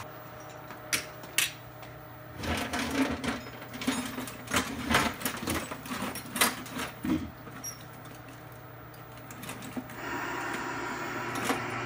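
Small objects and tools knocking and clattering on a wooden workbench as they are rummaged through and moved about, a few isolated clicks first and then a busy run of knocks, over a steady low hum. About ten seconds in a steady hiss sets in.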